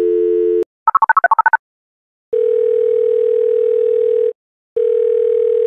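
Telephone call tones: a dial tone stops about half a second in, a quick run of about ten touch-tone keypad beeps dials a number, and after a short pause the line gives two long ringback tones, each about two seconds, as the call rings through.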